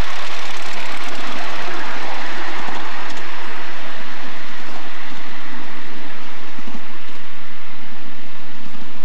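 Miniature live-steam locomotive running close past with a loud rushing hiss of steam and exhaust, fading as it moves off.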